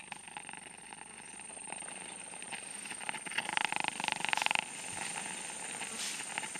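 A rapidly pulsed buzzing animal call that swells to its loudest burst between about three and a half and four and a half seconds in, over a steady high thin whine.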